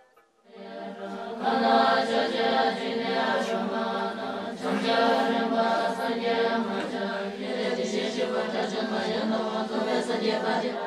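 Tibetan Buddhist nuns chanting prayers together in unison on a steady low pitch, fading in about half a second in.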